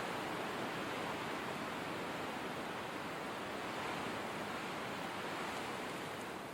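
Steady winter blizzard wind: an even, rushing hiss with slow, gentle swells, easing slightly near the end.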